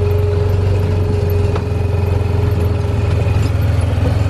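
Side-by-side UTV engine running steadily while driving, with a steady whine that drops out about a second and a half in, along with a single click.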